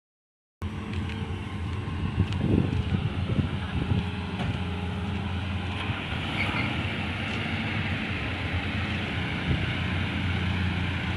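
A vehicle engine running steadily with a low, even hum, starting abruptly about half a second in.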